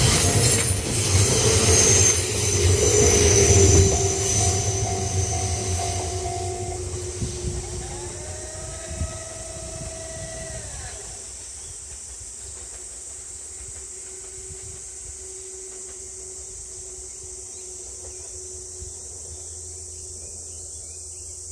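JR 211 series electric train running past over the rails, its wheel and running-gear noise loud for the first four seconds. The noise then fades away as the train draws off, with a few brief gliding tones around eight to eleven seconds in. After that only a quieter steady background with a high hiss remains.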